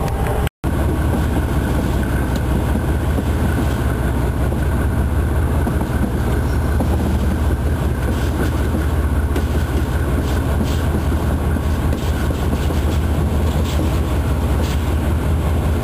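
Inside the cab of a DXC-class diesel-electric locomotive: the diesel engine's steady low drone mixed with wheel and rail noise as the train rolls slowly on a 10 km/h speed restriction. The sound drops out completely for a split second about half a second in.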